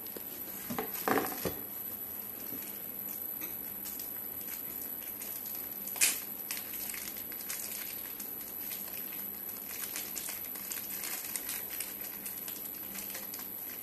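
Plastic packaging crinkling as a small wrapped packet of hardware is handled and opened by hand. There are a few knocks about a second in and one sharp click about six seconds in.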